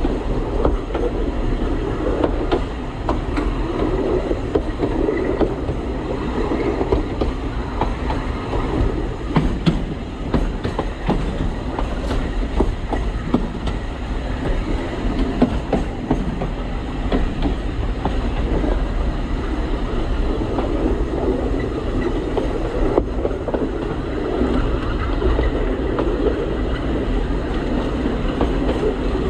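Alishan Forest Railway narrow-gauge train running, heard from the cab: a steady low rumble, with irregular clicks and knocks from the wheels on the track.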